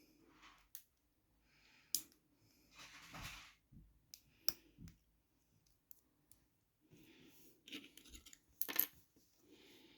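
Small plastic LEGO minifigure pieces being handled and snapped together: scattered sharp clicks and light clatter, with short bursts of rustling in between.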